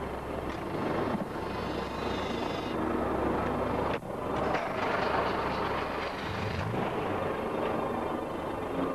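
A car engine running with a steady, noisy rumble, broken off abruptly about four seconds in.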